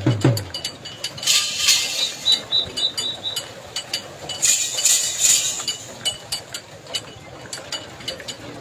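Steady clinking and clicking, a few clicks a second, from a pair of bulls running in harness round a metal pivot rig. Two louder bursts of high hiss come in, about a second in and again about four and a half seconds in.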